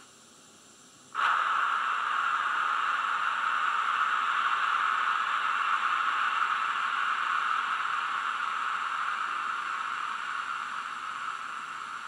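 Steady steam hiss from a Loksound Micro V4 DCC sound decoder running an N Class steam locomotive sound project, played through a tiny sugar cube speaker in an N gauge model. It starts suddenly about a second in and slowly fades away.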